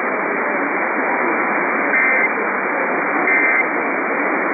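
Radio static hiss from an Emergency Alert System broadcast, broken twice by short, shrill digital data bursts about a second and a half apart: the AFSK end-of-message tones that close the alert.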